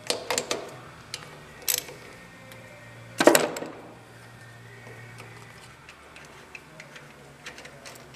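Metal hand tool clicking and knocking against a small engine's carburetor mounting as the carburetor is unbolted: scattered sharp clicks, with the loudest clatter about three seconds in.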